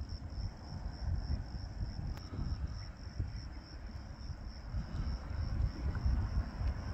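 Insects chirping in a steady high, evenly pulsing trill, over a low rumble of wind on the microphone.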